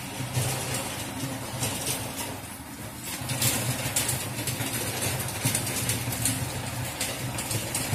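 An engine idling steadily, with short bursts of hiss over it, thickest around three and a half to four seconds in.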